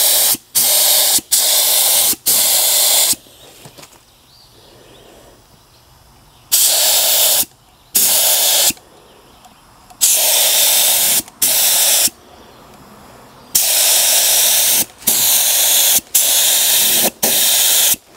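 Compressed-air paint spray gun with a 1.8 mm tip spraying thick high-build polyester primer (Evercoat Super Build 4-in-1). It hisses in about a dozen short bursts, about half a second to a second each, as the trigger is pulled on and off, with a pause of a few seconds early on.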